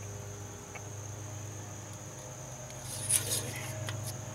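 A steady high-pitched tone over a low hum, and about three seconds in a short cluster of clicks and rustling as a hand takes hold of the hoses and plug wires in the engine bay.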